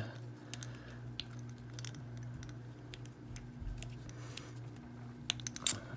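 Small metallic clicks and handling noises of a brass round body padlock being worked by hand, with a few sharper clicks near the end, over a low steady hum.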